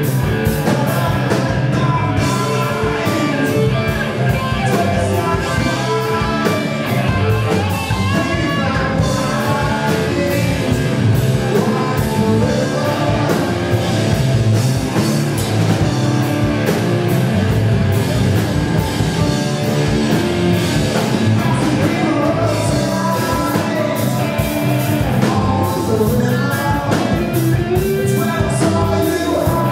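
Live rock band playing: electric guitars, bass guitar and a drum kit, with a man singing lead vocals in places, clearest near the end.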